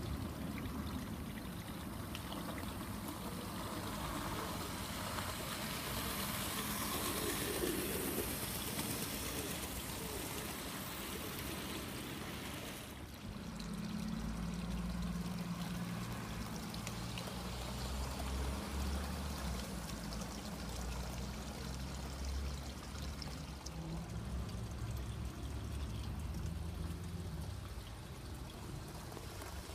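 Garden-railway model trains running on outdoor track. A steady hiss like trickling water fills the first half. After a change about halfway through, a low hum of the train's motor and wheels on the rails takes over.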